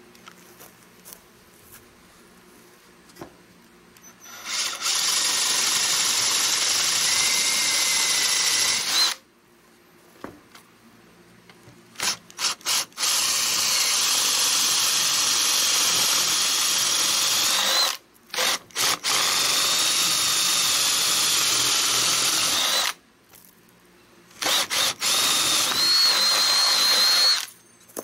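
Cordless drill boring through a wooden board with a spade bit, starting after a few quiet seconds and running in several long runs of a few seconds each, with short stops and quick trigger blips between. The motor whine climbs in pitch near the end.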